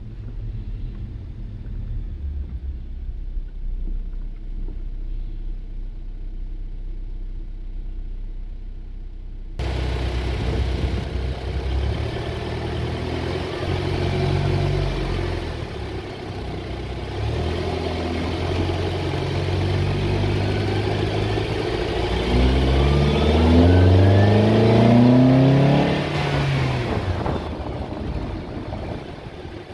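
Honda Accord's K24 2.4-litre four-cylinder pulling away and driving at low speed, breathing through a homemade intake with a K&N filter and the intake resonator removed. For the first third it is heard from inside the cabin as a low rumble. It then switches abruptly to the microphone at the front bumper by the intake, where the induction sound is much louder. Near the end the engine accelerates, rising steadily in pitch, then lets off.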